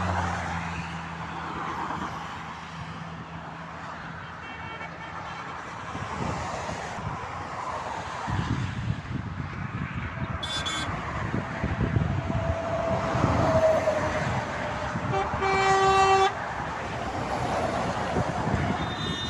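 Motorway traffic passing, with a vehicle horn sounding once about fifteen seconds in, a single blast of about a second.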